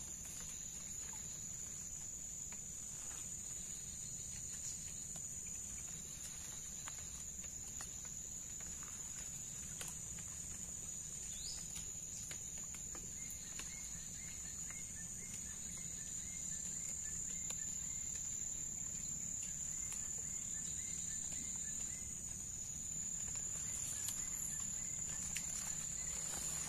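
Insects droning steadily at one high pitch, with a faint run of short repeated chirps in the middle.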